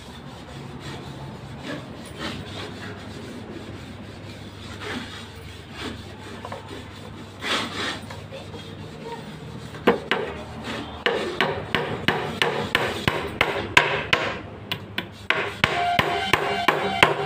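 Scraping and rubbing on wood over a low hum, then from about ten seconds in a run of sharp hammer blows on wood, about two or three a second.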